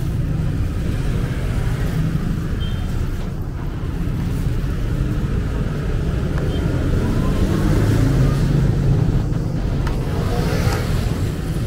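Street ambience dominated by a steady low rumble of road traffic.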